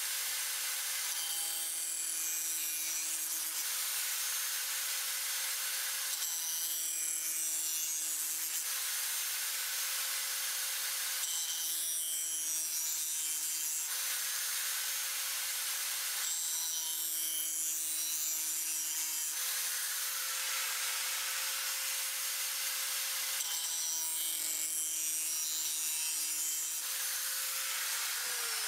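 Power tool with a spinning wheel grinding the edge of a steel knife blade: a steady motor tone under harsh rasping that swells in regular passes, five times, each about two and a half seconds long and about five seconds apart.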